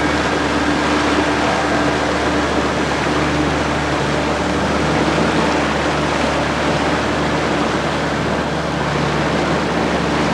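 Motorboat engine running steadily under load, with water rushing along the hull as the boat pushes upstream against a strong flood current.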